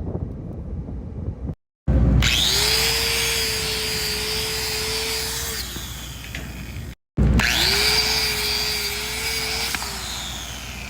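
Angle grinder spinning up and grinding metal, heard twice. Each run lasts about three seconds, with a steady motor hum over a hissing grind, and the motor winds down at the end of each run.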